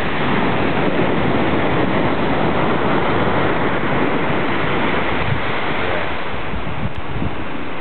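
Steady rushing noise of ocean surf, mixed with wind buffeting the microphone.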